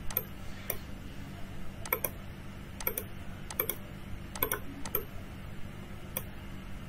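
Computer mouse clicking, about ten sharp clicks at irregular intervals, some in quick pairs, over a steady low hum.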